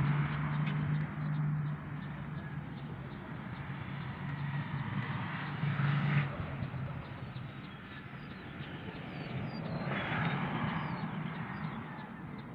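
A distant motor engine hums steadily, louder near the start and again around the middle, then fading. Faint bird chirps come through in the second half.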